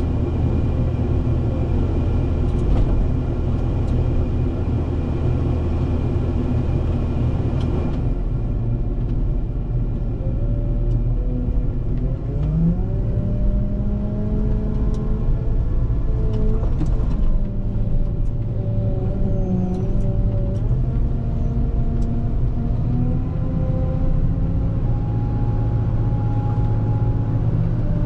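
Volvo L90H wheel loader's diesel engine running steadily. From about ten seconds in, its pitch and the whining tones above it rise and fall as the engine speed changes under load while plowing snow.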